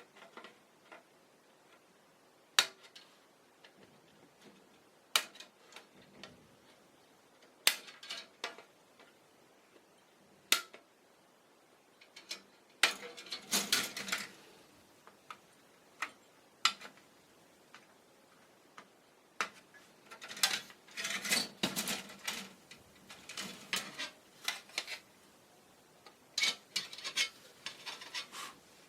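Sharp clicks and small clatter of hard plastic kit parts and hobby tools being handled on a work surface. Single snaps come every few seconds, with busier runs of tapping and rattling near the middle and again toward the end.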